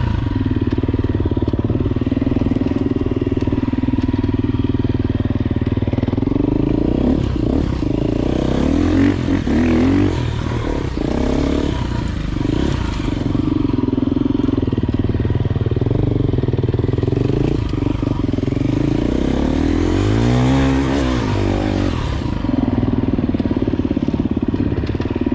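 Enduro dirt bike engine running under varying throttle on a rough trail, its pitch rising and falling as the rider works over climbs and descents, with a sharp rev up and back down near the end.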